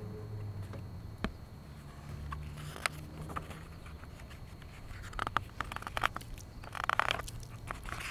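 Hardcover picture book being handled and its pages turned: scattered light clicks and paper rustles that grow busier in the second half, over a low hum of passing traffic.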